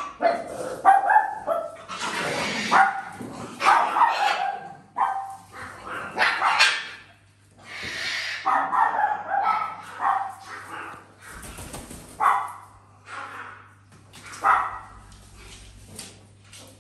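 A parrot mimicking a dog, giving a long series of dog-like barks about one a second with short pauses.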